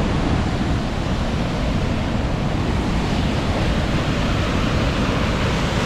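Avalanche Creek's whitewater rushing through a narrow rock gorge: a steady, loud, unbroken rush of water.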